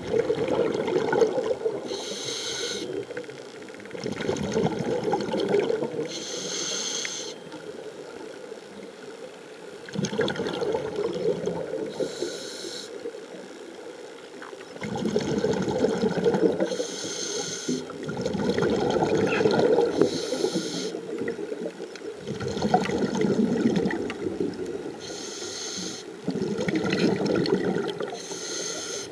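Scuba diver breathing through a regulator underwater. Each breath is a short hiss on the inhale, then several seconds of rushing, bubbling exhaust on the exhale, repeating every three to five seconds.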